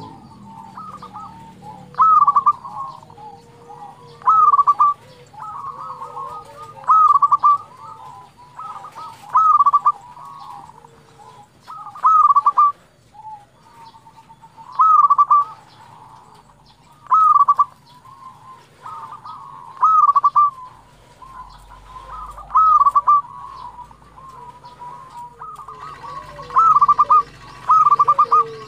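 Local-type zebra dove (perkutut lokal) singing: its fast, staccato cooing phrase repeats about every two and a half seconds, with fainter calls in between.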